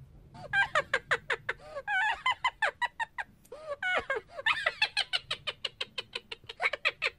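Cartoon gibberish-chatter sound effect: a high, sped-up voice jabbering in fast pitch-bending syllables, about six or seven a second, starting about half a second in with a couple of short pauses.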